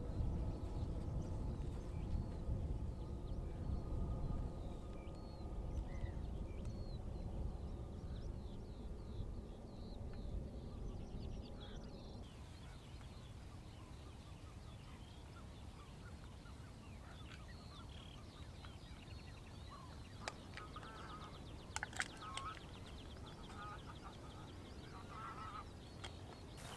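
Geese honking and other birds calling, over a low rumble that eases about twelve seconds in; after that come scattered short bird calls and a few sharp clicks.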